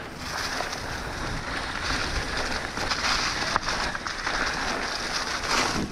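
Trek Slash 9.8 mountain bike riding down a dirt trail: a steady rush of tyre noise, trail rattle and wind on the camera microphone, with one sharp click a little past halfway.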